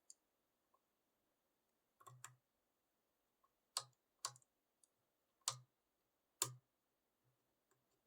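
Scattered small clicks from lock picking tools working the pin tumblers of a 6-pin pin-tumbler padlock: about six short clicks, some in close pairs, between long quiet gaps.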